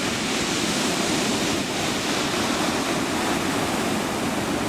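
Sea waves washing on the beach in a steady rushing noise, with wind on the microphone.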